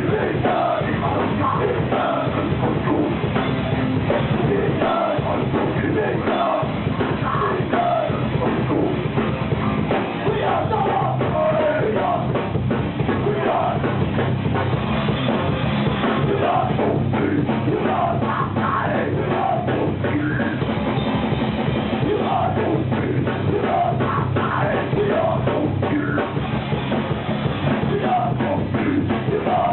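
Live heavy metal band playing loud and dense, with the drum kit prominent.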